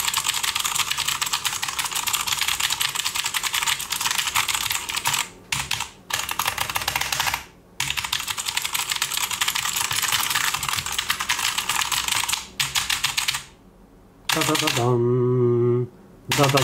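DREVO BladeMaster Pro wireless mechanical keyboard typed on fast: a dense run of key clicks with two short pauses, stopping about thirteen seconds in. Near the end a steady pitched drone sounds twice, each time for about a second and a half.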